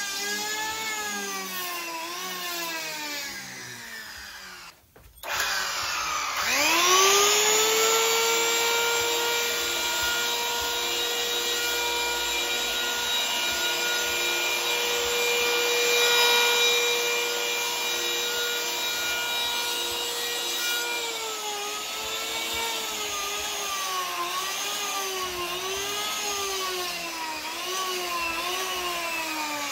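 Skil 100 electric hand planer cutting a foam surfboard blank, its motor whine dipping and recovering about once a second as each pass loads it. About five seconds in the sound drops out briefly, then the motor winds back up and holds a steady whine for over ten seconds before the rhythmic dipping passes resume.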